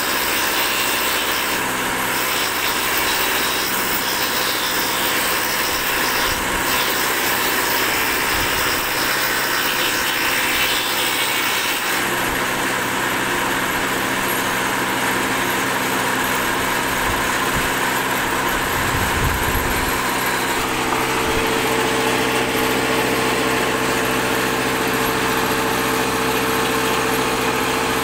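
Woodworking machine running steadily while its cutter works through a wooden board pushed by hand across the table, with a shift in the cutting noise about twelve seconds in.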